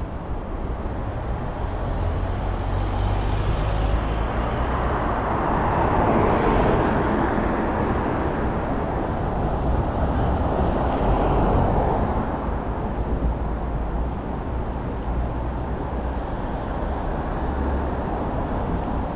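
City street traffic: motor vehicles passing close by over a steady low engine rumble, swelling about six seconds in and again near twelve seconds.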